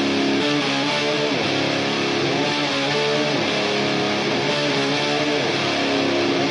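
Background music led by guitar, playing held notes that slowly bend up and down in pitch.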